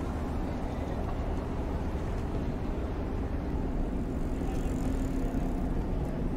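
Dubbed city-traffic sound effect: steady noise of car engines and street traffic with a low engine hum, a little louder about four seconds in.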